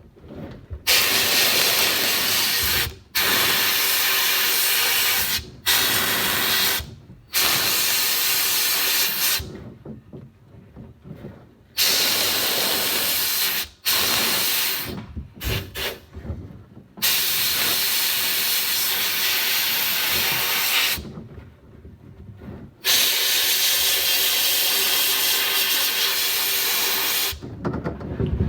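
A pressurised spray nozzle hisses loudly in a series of blasts a few seconds long, each cutting on and off sharply, with a few short choppy bursts in the middle.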